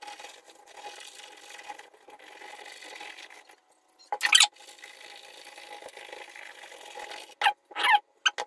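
Toothbrush bristles scrubbing across a laptop keyboard's keys, with a few short, loud scrubbing strokes about four seconds in and near the end over a faint steady hiss.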